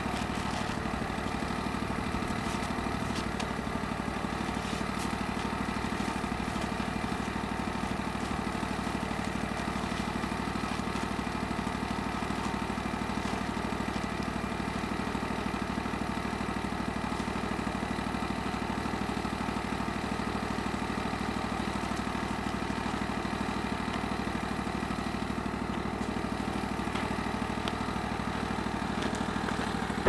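Engine idling steadily, with a few faint knocks over it.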